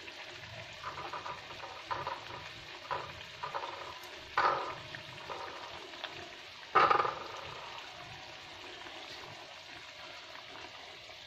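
A pan of sardine sambal with long beans sizzling, with a run of short wet plops as tofu cubes are dropped into the sauce by hand. The two loudest plops come about four and a half and seven seconds in, and after them only the steady sizzle remains.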